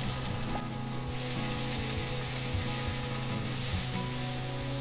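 Chopped onion, garlic and green chillies sizzling steadily in hot mustard oil in a nonstick wok while being stirred with a silicone spatula, over a steady low hum.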